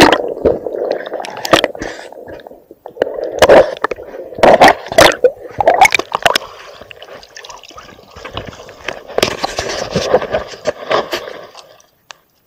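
Water sloshing and splashing aboard a fishing boat, with repeated sharp knocks and thumps; the sound stops abruptly near the end.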